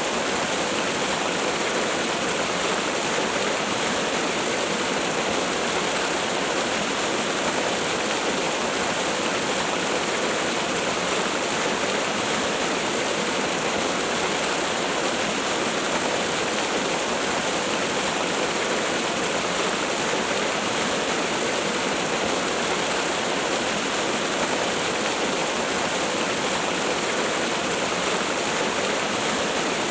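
Waterfall: a steady rush of falling water, even and unchanging.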